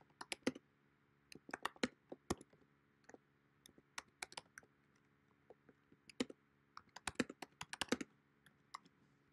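Typing on a computer keyboard: irregular runs of quick key clicks separated by short pauses.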